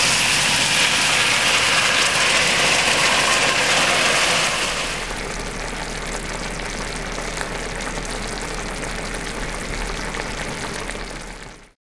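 A hot pot of browned chicken, mushrooms and onions sizzling as a sauce is poured in. About four and a half seconds in, the sizzle drops to a quieter steady simmer. The sound cuts off just before the end.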